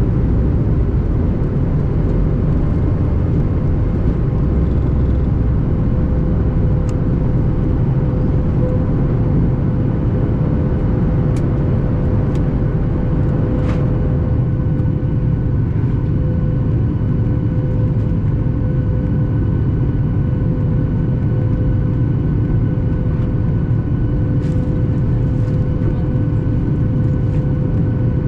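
Cabin noise inside a Boeing 737 MAX 8 jet airliner: the steady roar of its CFM LEAP-1B turbofan engines and airflow, with a constant hum. A higher steady whine joins about halfway through, and there are a few faint ticks.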